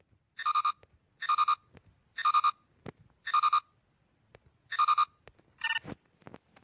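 Star Trek LCARS-style computer interface beeps from a themed phone launcher's touch feedback: five identical short electronic chirps a second or so apart, then a differently pitched chirp near the end.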